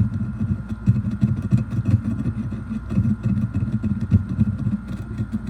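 Brass dowel scraping rust spots off a WD-40-soaked steel shotgun barrel in quick, uneven back-and-forth strokes. It is moving smoothly over the barrel as the rust comes up.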